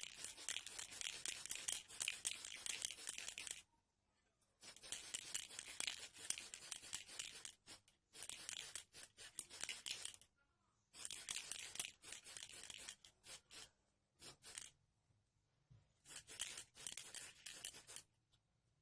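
Rapid abrasive rubbing strokes by hand on a small part, in runs of a few seconds separated by short pauses.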